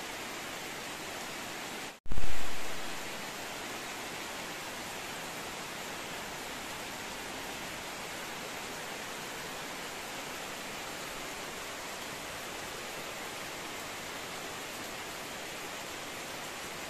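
Heavy rain falling as a steady, even hiss. About two seconds in the sound drops out for an instant, then a short low thump fades away within a second.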